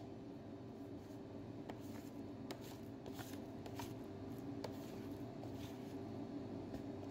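Faint soft squelches and light ticks of wet, sticky seeded dough being folded and worked by hand on a stainless steel bench, over a steady low hum.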